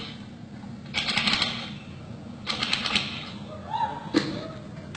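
Three short bursts of rapid clicking, like a typewriter, about a second and a half apart, with a single sharp knock near the end.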